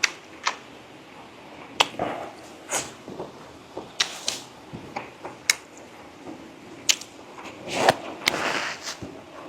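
Eating sounds from a close microphone: irregular sharp clicks and taps, with a few short wet smacks, about once or twice a second.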